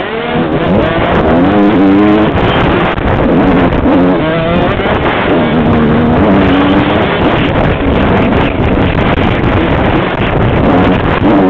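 Suzuki RM125 two-stroke motocross engine revving hard, its pitch climbing and dropping again and again as the rider works the throttle and shifts, heard close up from the helmet.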